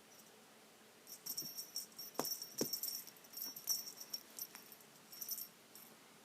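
Small metal chain jingling and clinking in irregular spurts as a kitten bats at it, with a couple of light taps in the middle.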